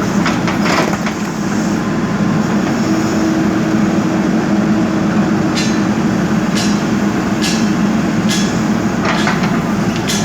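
JCB backhoe loader's diesel engine running steadily under load, with a series of sharp knocks, about one a second, in the second half.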